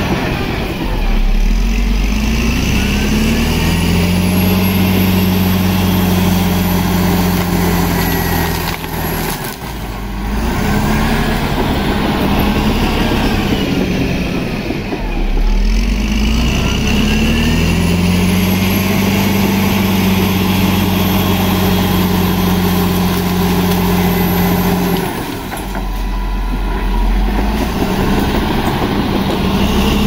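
Bulldozer's diesel engine working under load in two cycles: it revs up, holds a steady high pitch for several seconds, then drops back briefly before climbing again. A faint high whine rises with each rev-up.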